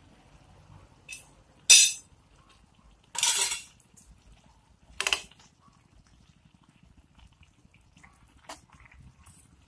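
Metal spoon knocking and scraping against a metal wok of fish simmering in tomato sauce: a few separate clinks, the loudest about two seconds in, with a longer scrape a little after three seconds.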